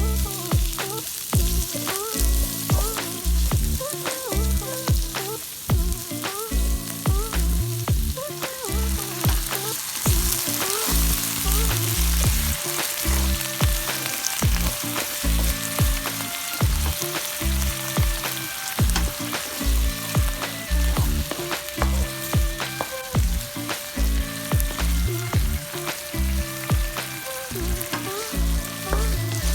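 Stir-frying in a hot wok: oil and food sizzling with a steady hiss while a spatula knocks and scrapes against the pan two or three times a second in an uneven rhythm.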